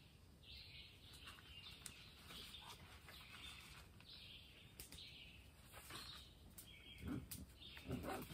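Faint forest ambience: a bird calling over and over in short raspy notes, about one every half second to second, with a few low bumps near the end.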